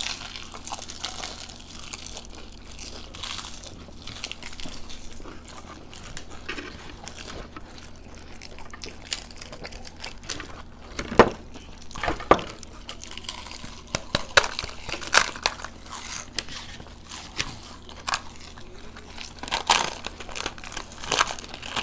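Crisp fried puri shells of giant fuchka (panipuri) crunching and cracking as they are bitten and broken, with chewing in between. Scattered sharp crackles, the loudest two about halfway through, and more frequent crunching in the second half.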